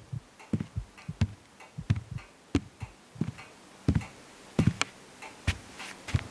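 Slow, heavy footsteps at a walking pace on a hard floor: a dull thud, sometimes with a sharp click, about every two-thirds of a second.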